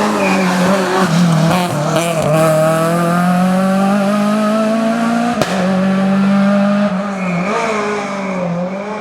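Rally car engine running hard at high revs, its pitch climbing steadily under acceleration. There is a sharp crack about five seconds in, then the revs dip and pick up again near the end.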